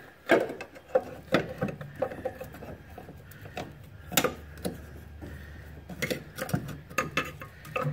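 Irregular clunks, clicks and scraping knocks as the old passenger-side engine mount of a Toyota Matrix is wrestled loose and worked out past the surrounding parts of the engine bay.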